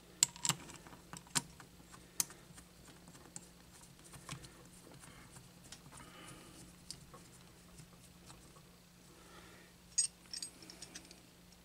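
Scattered small metallic clicks and taps as hands fit a bolt and the aluminium fitting plate onto a Sanden AC compressor, with a quick run of clinks near the end. A faint low hum runs underneath.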